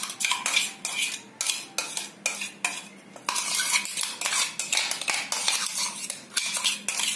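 Metal spoon scraping and knocking against a steel mixer-grinder jar and a stainless steel bowl while paste is scraped out: a run of metallic clinks and scrapes, about two a second.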